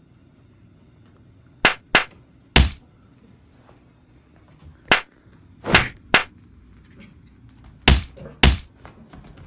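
A run of sharp slap-like smacks, about eight in three bunches, some with a heavy low thud under them.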